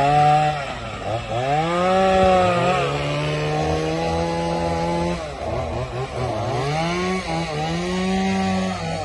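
Two-stroke chainsaw cutting through fallen timber, running at high revs. Its pitch sags several times as the chain bites into the wood and climbs back between cuts.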